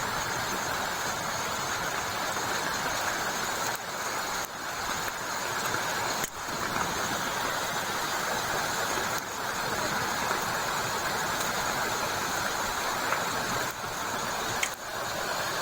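Heavy rain falling steadily, a continuous hiss with a few brief dips in level.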